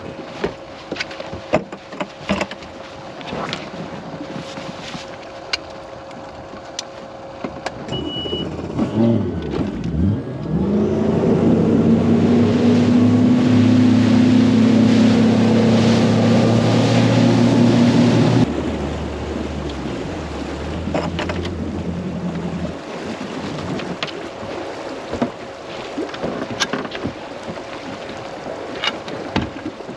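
Bass boat's Mercury four-stroke outboard throttling up about nine seconds in and running hard at planing speed, with wind and water rushing past. Just past the middle it is throttled back abruptly and runs on at a lower note for a few seconds before dying down. Scattered knocks and clicks from the deck come before and after the run.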